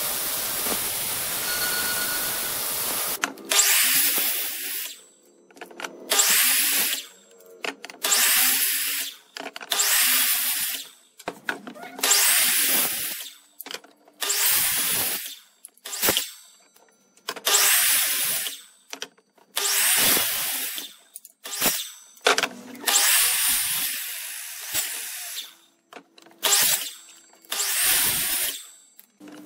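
Handheld electric power tool cutting into wood in a dozen or so short bursts, about one every two seconds, each with a quick spin-up whine at its start. A steady machine hiss runs for the first three seconds.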